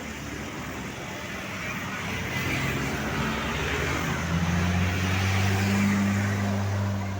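A road vehicle passing close by: engine hum and tyre noise swell to a peak about six seconds in, then begin to fade.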